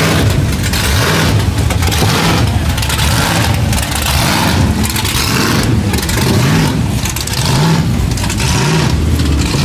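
A car engine revving hard again and again, its pitch climbing and dropping several times, under a loud steady rushing noise.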